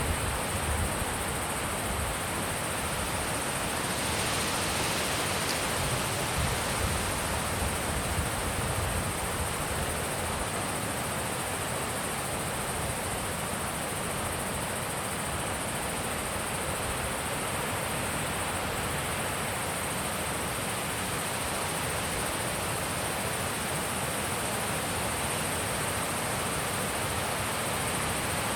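Wind blowing steadily, an even rush with a few low gusts buffeting the microphone in the first several seconds. A thin, steady high tone runs underneath throughout.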